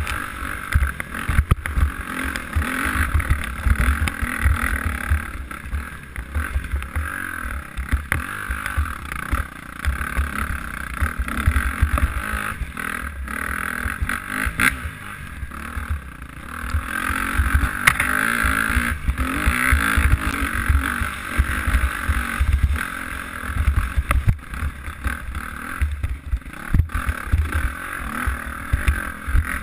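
KTM dirt bike's engine running under riding load along a trail, its note rising and falling, with heavy wind rumble on the helmet-mounted microphone.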